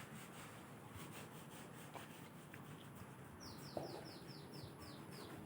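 A rapid run of about eight faint, high chirps, each falling in pitch, from a small bird, over a low background.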